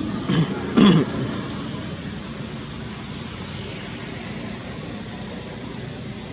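Two short, low, cough-like vocal bursts about half a second apart, within the first second, over a steady background rush of noise.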